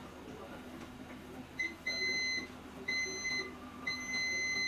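Digital multimeter beeper sounding as the probe is touched to a phone board's component pad while the line is checked for a short: a brief blip, then three steady high beeps, each longer than the last, the final one lasting over a second.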